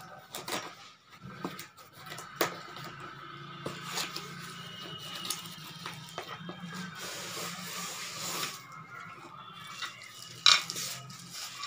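Cardboard box being slit open with a knife and pulled open by hand: scraping, tapping and rustling of cardboard, with a loud rustle of plastic wrap and polystyrene packing near the end.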